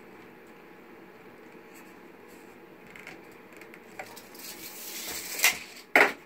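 Handling noise as the oar stopper is shifted and squared on the sleeved oar shaft: a click, a rising scrape, then two sharp knocks near the end, over a faint steady room hum.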